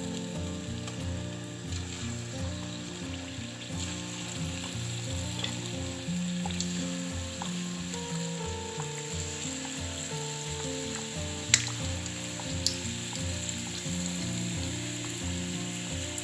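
Battered chicken pieces frying in hot oil in a pan, a steady sizzle as more pieces are lowered in. Two sharp clicks stand out about two-thirds of the way through.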